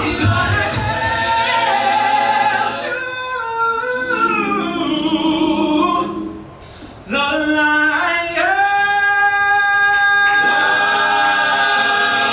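Men's a cappella ensemble singing in close harmony, holding chords. The voices drop away briefly about six seconds in, then come back on a long held chord.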